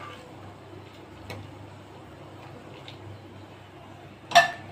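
Low steady background hum with a couple of faint ticks, then near the end a loud, short ringing clink of metal cookware being knocked.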